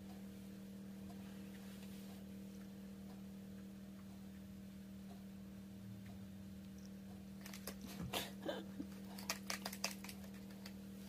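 A steady low electrical hum, with a scatter of light clicks and taps about eight to ten seconds in.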